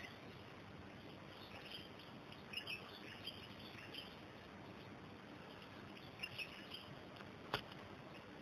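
Faint outdoor background hiss with a few short, high chirps, a small cluster about two and a half seconds in and another about six seconds in, and a single sharp click near the end.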